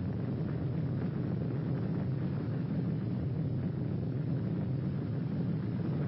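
Steady low rumble with no separate bangs, standing for the atomic bomb's blast on an old film soundtrack.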